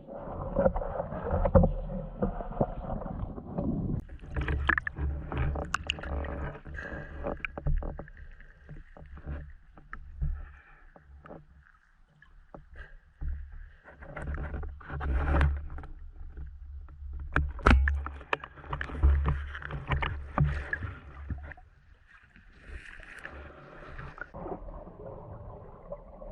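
Water moving and sloshing around a GoPro camera in its waterproof housing on a spearfishing dive, with irregular knocks and clicks over a low rumble.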